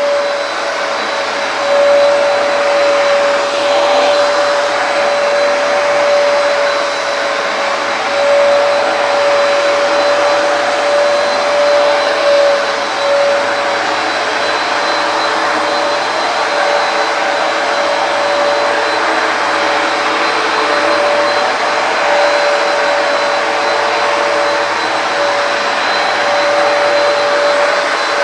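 Hoover PowerDash carpet cleaner running steadily, its suction motor giving a steady whine over a rushing hiss as it is worked across a wet rug.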